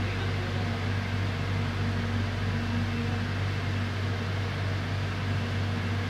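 Steady hum of an electric commuter train's air conditioning and onboard equipment, heard inside the carriage while the train stands at a station: a constant low drone with a few steady tones over a soft hiss.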